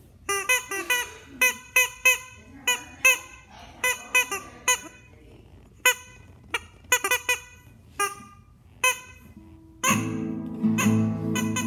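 Squeezed rubber chicken giving many short squawks in a quick rhythm. About ten seconds in, an acoustic guitar starts playing.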